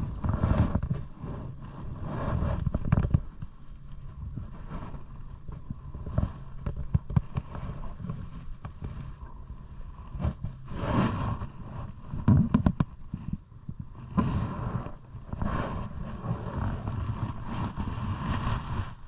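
Wind rumbling on the microphone, with irregular bumps and rustles from the phone being handled and moved about.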